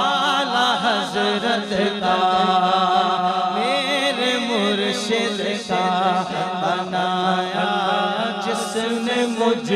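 A male voice singing a manqabat (an Urdu devotional song) into a microphone, in long melismatic held notes with wavering ornaments. A steady low hum runs underneath.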